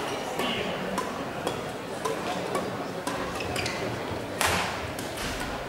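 Badminton hall background between rallies: scattered sharp clicks of rackets striking shuttlecocks on neighbouring courts and short squeaks of court shoes on the floor, with one louder rush of noise about four and a half seconds in.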